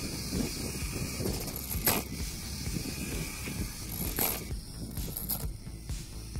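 Small DC motor driving the gears of a homemade model pile driver, a steady rattling whirr with rapid ticking. Sharp clacks come about two seconds in and again about four seconds in.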